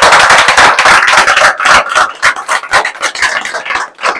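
A small crowd applauding, dense clapping at first that thins out to scattered single claps near the end.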